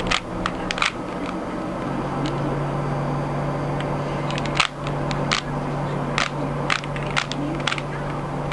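Rubik's Cube being turned by hand: irregular plastic clicks as its layers are twisted, a few at the start and a run of them in the second half, over a steady low hum.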